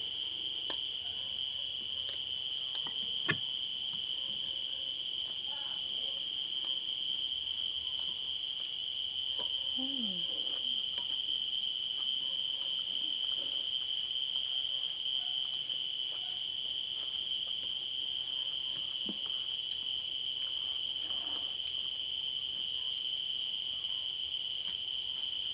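Crickets trilling steadily at one high pitch, with a few sharp clicks of a spoon and fork against a plate, the loudest about three seconds in.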